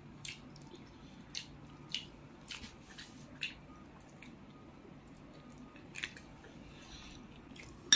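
Faint wet chewing and mouth clicks of someone eating, a few scattered smacks over several seconds, ending with a sharp clink of tableware.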